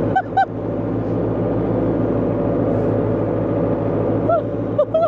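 International 785 tractor's diesel engine running steadily, while geese honk in short calls twice just after the start and three times near the end.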